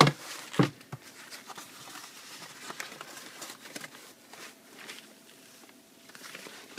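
Two knocks as the laptop is picked up and handled, the first the loudest, then soft, irregular rustling of the thin white protective sleeve wrapped around the laptop as it is handled and pulled open.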